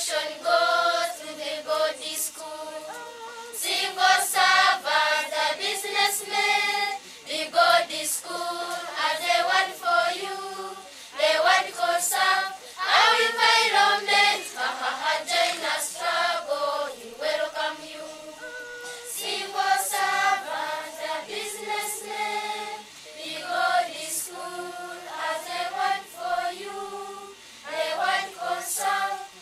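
Choir of Ugandan primary-school children singing a song together.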